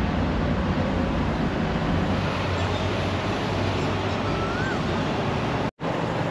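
Steady city traffic noise: a low engine hum over a constant rush, with a short, high chirp about four and a half seconds in. The sound drops out for a split second near the end.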